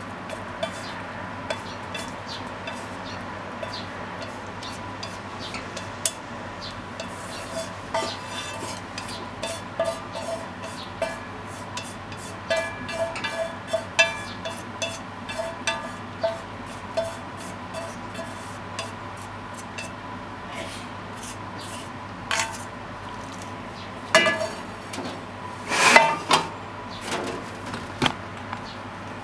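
Wooden chopsticks scraping and tapping against a metal frying pan as stir-fried pork, cabbage and bean sprouts are pushed out into a bowl, many small clicks with the pan ringing briefly on some taps. Near the end come a few louder clanks as the pan is set back down on the gas stove grate, over a steady background hum.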